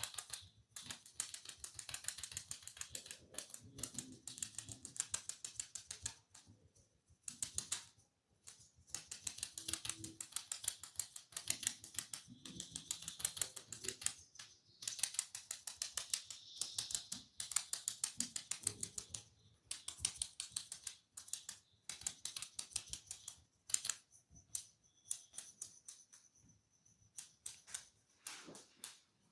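Close-miked scratching on a person's head and hair: a rapid, dry, crisp crackle that comes in bursts of a second or two with short breaks between them.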